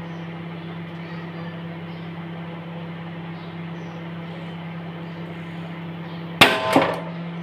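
Microwave oven running with a steady hum. About six seconds in there are a few loud, sharp cracks, and the hum carries on after them.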